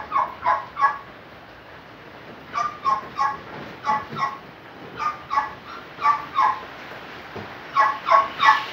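A dog barking repeatedly, in quick runs of two or three short barks.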